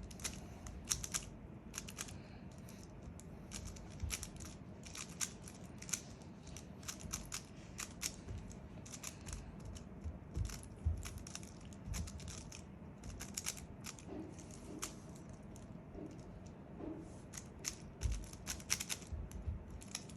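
A Rubik's cube being turned fast during a speedsolve: a rapid, irregular run of small plastic clicks and clacks as the layers snap round, some in quick bursts of turns.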